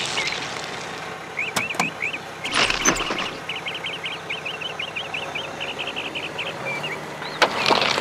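Small stones clattering and clicking in short bursts, loudest about two and a half seconds in and again near the end, as a toy JCB micro excavator's bucket digs into a pile of gravel. Under it runs a long series of quick, high chirps.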